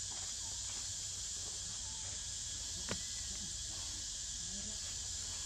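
Steady high-pitched drone of insects in the forest, with a single sharp click about three seconds in.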